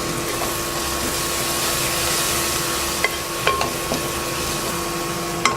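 Onions, ginger-garlic paste and turmeric sizzling steadily in hot oil in a pan, with a spatula tapping and scraping against the pan a few times in the second half.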